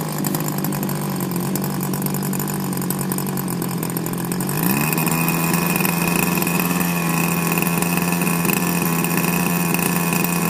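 Small 26cc two-stroke gas engine of an R/C speedboat idling steadily out of the water. About four and a half seconds in, its pitch shifts briefly, and it then runs a little louder with a high whine added.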